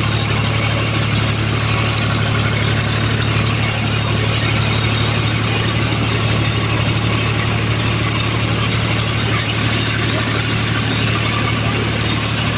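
Tractor engine running steadily with a strong low hum while dragging a log along the trail.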